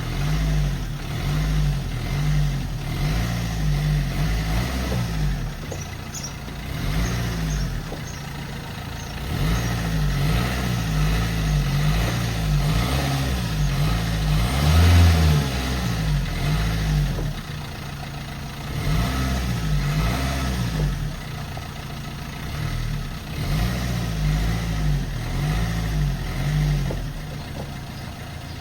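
A car engine being revved repeatedly with the accelerator pedal, its pitch rising and falling in quick blips about once a second, in runs separated by short spells near idle.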